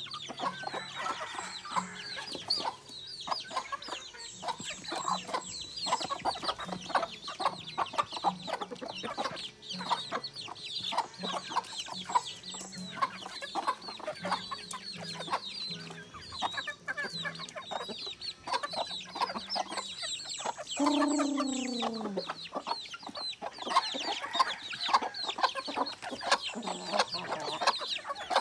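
A flock of native chickens clucking while they feed, with many short calls overlapping one another. About two-thirds of the way through, one longer call slides down in pitch.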